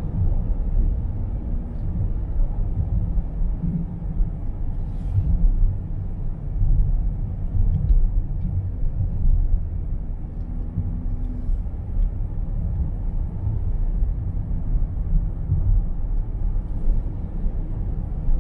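A steady low rumble with uneven, fluttering loudness, with a few faint ticks about 5, 11 and 17 seconds in.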